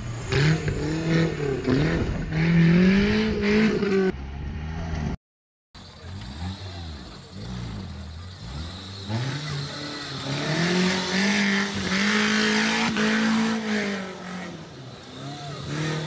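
Modified Maruti Suzuki Gypsy 4x4 engines revving up and down under load as they climb a muddy, rocky slope, the pitch rising and falling again and again. About five seconds in the sound drops out for half a second where the footage cuts to another vehicle.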